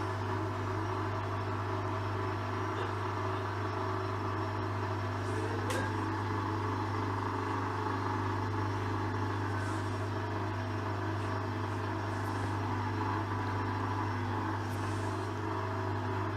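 Hoover washing machine drum spinning at a steady speed during a spin cycle: an even motor hum with a strong low drone.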